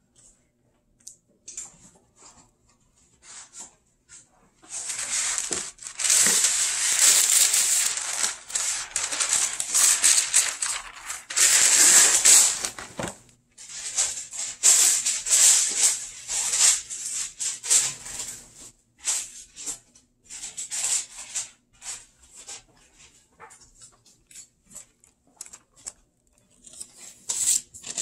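Metal bench scraper scraping and chopping through pastry dough on a granite countertop. A long stretch of rough, continuous scraping begins about five seconds in, followed by many short separate scrapes and chops.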